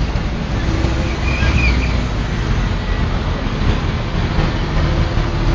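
Steady road and vehicle noise, a dense even rumble with no distinct hoofbeats standing out.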